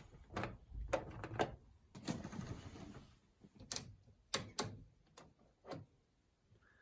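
Washing machine program selector dial being turned by hand, clicking through its program positions with about nine sharp, irregular clicks.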